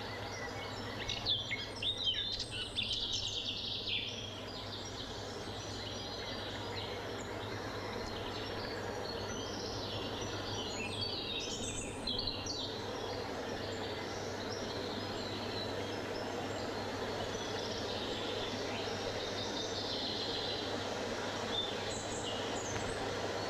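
Forest birds chirping and singing over a steady hiss of wind through the trees. The birdsong is busiest in the first few seconds and picks up again around the middle and near the end.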